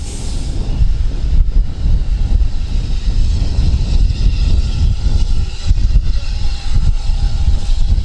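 Loud, uneven low rumble of a railway train on the move, with no clear beat.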